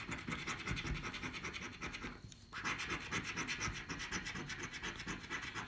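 Scratchcard panels being scraped off in rapid short strokes, with a brief pause about two seconds in.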